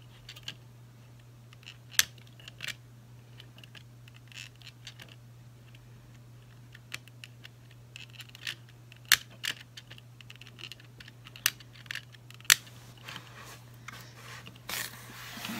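Scattered small plastic clicks and scrapes from the time-setting wheel of the Cogsworth clock's battery movement being turned by finger, with a few sharper clicks standing out.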